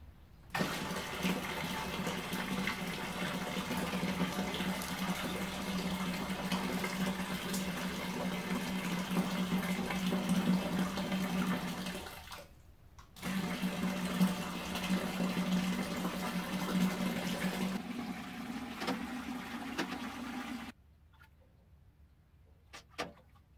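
Hot mash water running from a stainless keg hot liquor tank's tap into a stainless steel Robobrew vessel: a steady splashing fill that stops for about a second partway through and stops again near the end. A few faint clinks of a spoon stirring the water follow.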